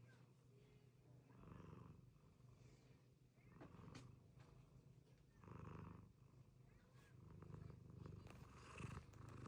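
A cat snoring softly in its sleep, a breath about every two seconds over a low, steady rumble.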